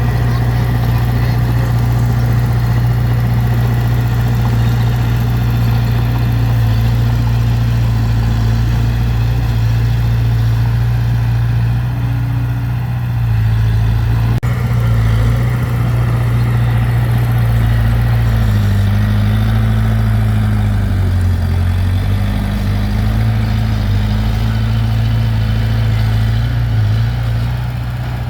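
Heavy diesel engine of earthmoving machinery running steadily with a deep hum, its pitch dipping and recovering about two-thirds of the way through.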